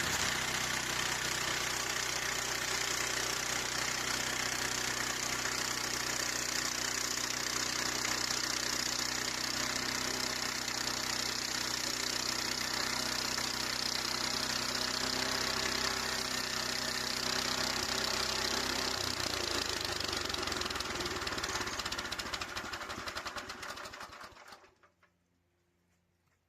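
Harbor Freight portable bandsaw sawmill's gasoline engine running steadily. Its note shifts about two-thirds of the way through, then it dies away and stops abruptly near the end.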